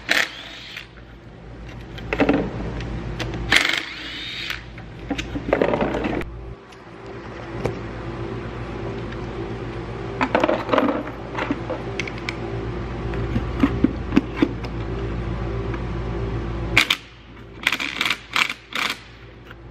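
Metal clinks and knocks as a car starter motor and its parts are handled and set down on a workbench, in scattered groups with a quick run of sharp clicks near the end, over a steady low hum.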